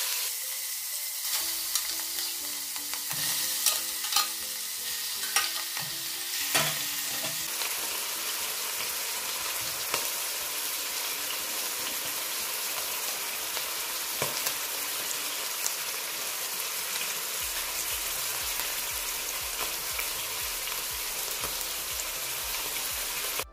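Chunks of meat sizzling in hot oil in a stainless steel pot as they brown. Sharp crackles and pops in the first several seconds settle into a steady hiss.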